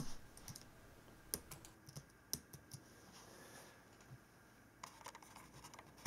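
Faint, irregular keystrokes on a Logitech K750 wireless solar keyboard: scattered single key clicks rather than a steady run of typing.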